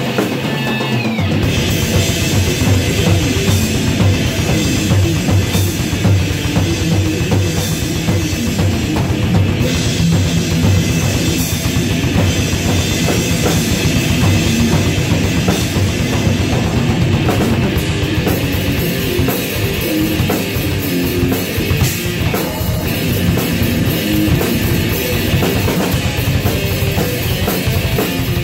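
Improvised heavy metal played live on an electric guitar and a drum kit, loud and continuous, with the bass drum coming in about a second and a half in.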